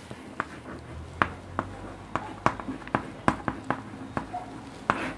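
Chalk writing on a chalkboard: an irregular series of sharp taps and short scratches as the word is written stroke by stroke, about a dozen in all, over a faint low hum.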